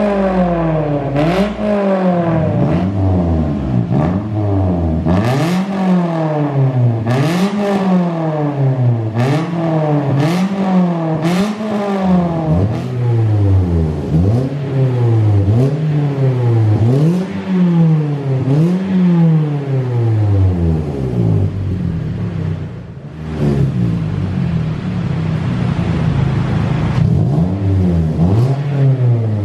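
Car engine revved again and again through an aftermarket racing muffler, its pitch rising and falling about every two seconds. Short sharp cracks come in the first half, and there is a brief lull a little past two-thirds of the way through.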